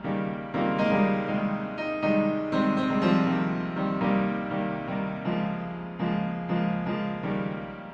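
Piano music: a run of struck notes, a new note or chord about every half second.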